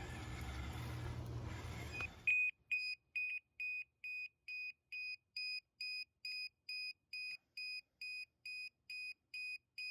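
A steady running hum stops abruptly about two seconds in. Then an electronic alarm beeps evenly at a single high pitch, about two to three beeps a second, typical of a low-voltage battery alarm on the RC model's drained battery.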